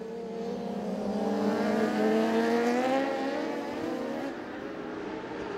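Several superbike racing motorcycle engines accelerating together, their pitch rising steadily.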